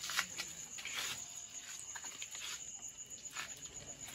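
A steady chorus of crickets, with scattered short rustles and splashes from live shrimp flicking in a shallow plastic tub as hands pick through them.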